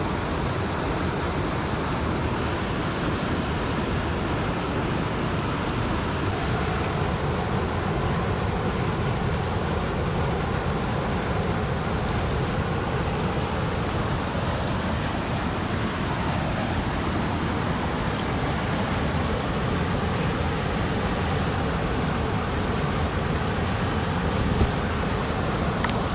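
Steady, even rushing noise that never breaks, with a single sharp click near the end.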